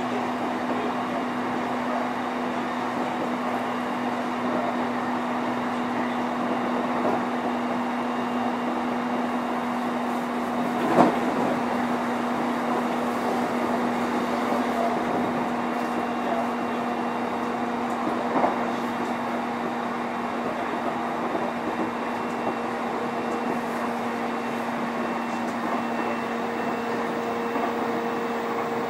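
Running noise inside a JR East E531 series electric train's motor car (MoHa E530) at steady speed: a constant rumble of wheels on rail with a steady hum. A sharp knock about eleven seconds in and a fainter one a few seconds later.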